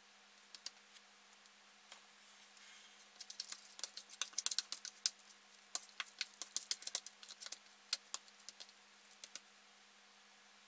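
A utensil clicking and scraping against a container as a sticky homemade clay mixture is stirred: a fast, irregular run of small clicks and taps that starts about three seconds in and dies away near the end.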